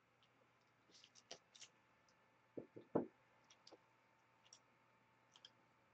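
Faint scattered clicks and light taps of a plastic waterproof phone pouch and its strap being handled, with a few firmer taps about three seconds in.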